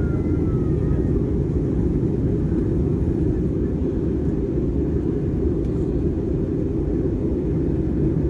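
Steady low roar of an Airbus A320's jet engines and airflow heard inside the passenger cabin.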